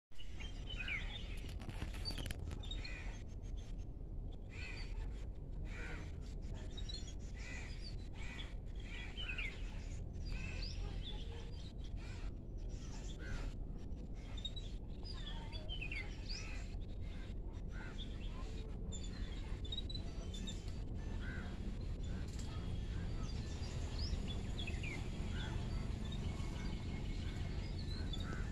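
Jungle babblers calling: many short, high calls and chirps scattered throughout, over a steady low rumble.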